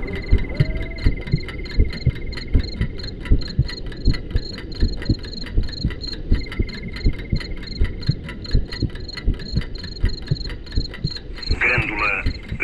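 Sound design from a multimedia projection show: low heartbeat-like thumps under fast, even high ticking and chirping tones. Near the end a voice like a radio broadcast comes in.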